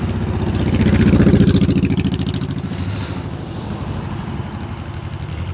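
A motor vehicle's engine running close by with a pulsing exhaust note. It swells to a peak about a second in and then slowly fades, like a vehicle driving past.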